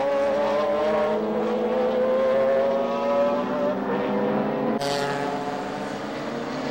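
Nissan Skyline GT-R race cars running at high revs, their engine note climbing slowly in pitch. About five seconds in it switches abruptly to another, closer engine note.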